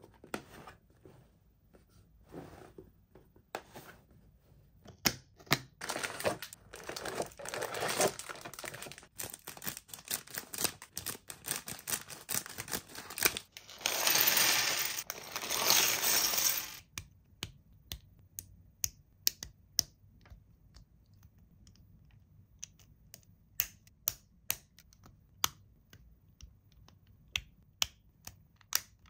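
Toy packaging being handled and opened: crinkling and rustling of plastic and cardboard with many sharp clicks, a loud tearing sound lasting about three seconds around the middle, then scattered light clicks and taps.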